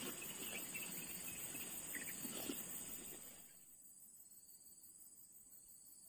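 Steady, high-pitched chirring of insects, with a soft rustling background noise and a few faint ticks in the first half that drop away about three and a half seconds in.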